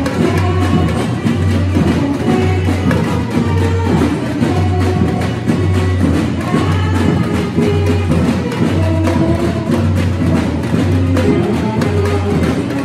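Live samba band: a samba percussion section with deep bass drums keeping a steady beat, higher drums and percussion playing the rhythm, and a melody running over the top.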